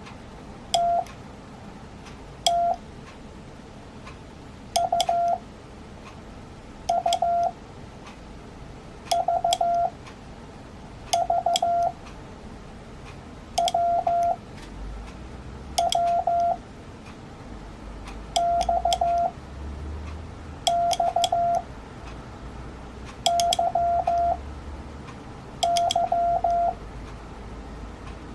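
Morse code (CW) practice tones: one steady beep keyed on and off, sending one character about every two seconds as a short group of dots and dashes. Each tone starts and stops with a faint click.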